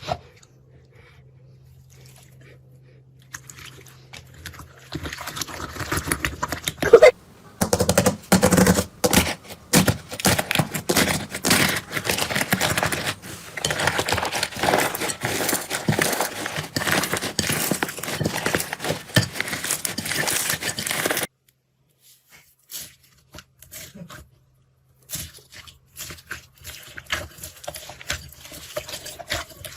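Slime being squeezed and worked, giving dense crackling and popping clicks. These stop suddenly about two thirds through, and sparser clicks resume near the end.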